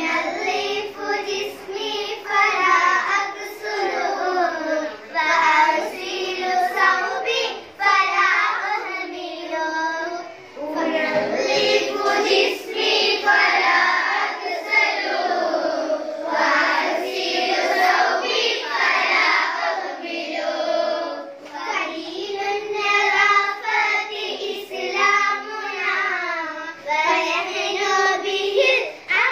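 A small group of young girls singing a song together, reading the words from sheets, with no instruments.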